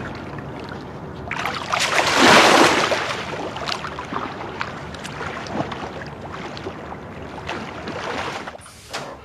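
Water splashing and sloshing as a swimmer thrashes her arms through the water, loudest about two seconds in and dying away near the end.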